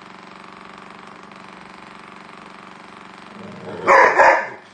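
Electric toothbrush buzzing steadily as it vibrates on a hardwood floor, then a golden retriever barks twice, loudly, near the end.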